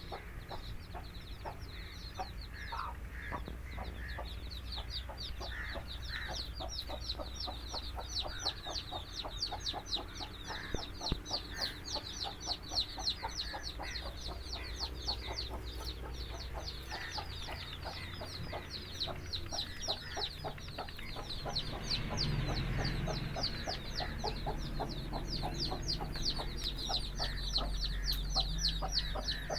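A brood of chicks peeping constantly in quick, high, falling calls, with a hen clucking now and then, over a steady low hum.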